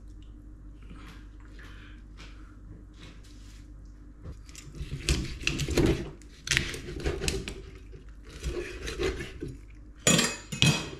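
Kitchen knife cutting through a sea perch behind the head on a wooden cutting board, in a run of irregular scraping strokes starting about four seconds in. Near the end the knife is set down on the stainless steel sink with a clatter.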